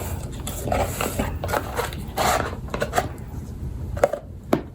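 Packaging being handled: intermittent paper rustling and light knocks, with two sharp taps near the end.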